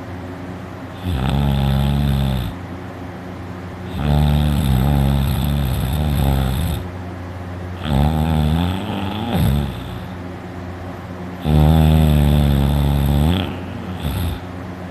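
A person snoring loudly in his sleep: four long snores, each one and a half to three seconds long, coming about every three and a half seconds. The snorer believes his uvula is vibrating.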